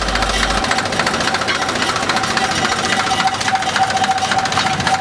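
Narrow-gauge diesel locomotive's engine idling with a rapid, steady clatter and a steady whine running through it.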